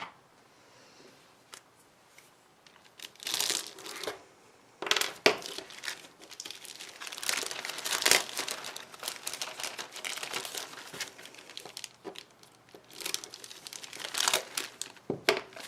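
Plastic kit bag crinkling and tearing as it is slit open with a knife and the plastic sprue is pulled out, in irregular clusters with a few sharp clicks. It starts about three seconds in, after a near-quiet opening.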